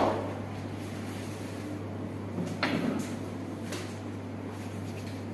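A soft slap of hands on skin about two and a half seconds in, followed by a faint click a second later, over a steady low hum.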